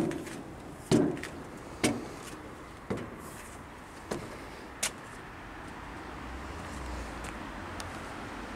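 Footsteps climbing perforated steel stairs of a playground climbing structure: about one clanging step a second, six in all, loudest at first and growing softer. They give way to a steady low background rumble.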